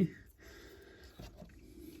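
A man's voice trails off, then quiet room tone with a faint low hum and one soft knock just over a second in.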